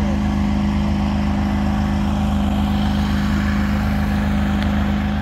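An engine running steadily at a constant speed: an even drone with a fast, regular pulse underneath.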